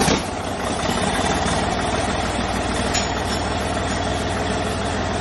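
A heavy engine running steadily, with an even low throb.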